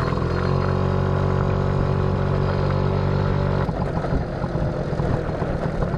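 Small motorcycle engine running while the bike rides along a gravel track. It holds a steady note for the first three and a half seconds or so, then turns rougher and noisier for the rest.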